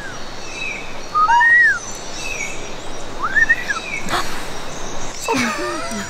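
Whistled bird calls made to call birds in: two loud arched whistles about two seconds apart, each rising then falling. Fainter short bird chirps sound higher up, and a lower falling call comes near the end.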